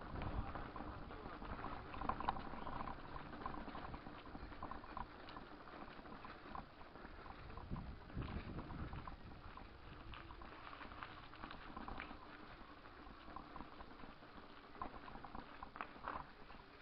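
Bicycle rolling over stone paving: a low rumble with many small rattles and knocks.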